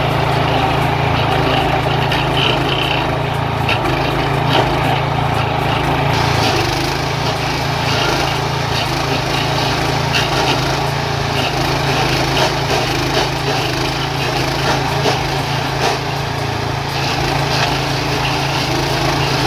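Walk-behind stump grinder with a DuroMax gas engine running steadily while its cutter wheel grinds into a tree stump, throwing wood chips and dirt.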